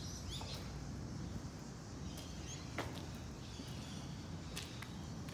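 Footsteps on a debris-strewn floor: a few irregular scuffs and knocks over a steady low rumble, with a couple of faint bird chirps.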